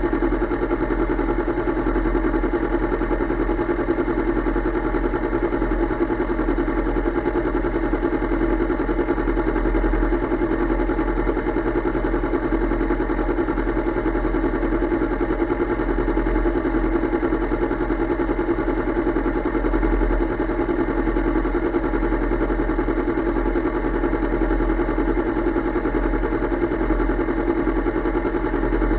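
Motorcycle engine idling steadily and evenly.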